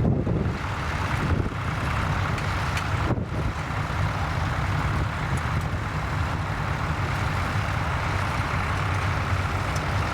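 Tractor engine running steadily with an even low hum, with brief wind buffeting on the microphone at the start.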